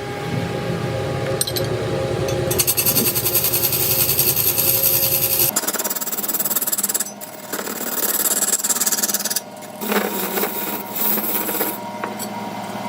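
Power tools working a large wooden log, in several short takes that change abruptly from one to the next.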